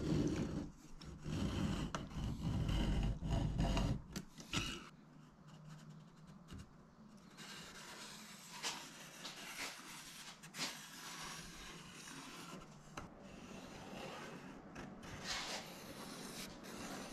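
Marker strokes scratching on an aluminium spar as station lines are drawn against a metal level, in short irregular strokes. Louder rubbing and knocks of the parts being handled fill the first four seconds.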